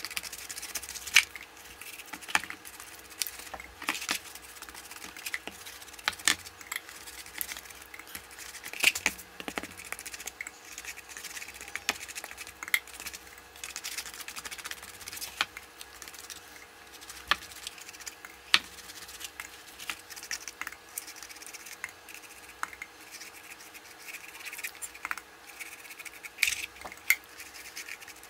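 Paintbrush scrubbing and dabbing varathane over a rough, hardened sawdust-and-wood-glue hat block: soft scratching with irregular sharp ticks and crackles throughout.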